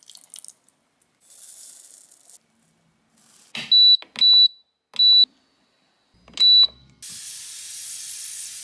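Four short, high electronic beeps, each starting with a click, as buttons on an appliance's control panel are pressed. Near the end a steady hiss sets in.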